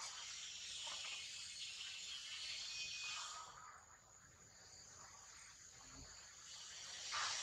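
Faint insect chorus in forest, a high hiss that swells, eases off in the middle and rises again near the end.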